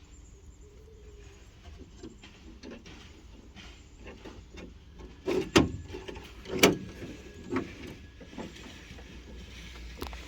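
Hand work on a car door: scattered clicks and knocks over a low hum, with two loud clunks about five and a half and six and a half seconds in, and a few softer ones after.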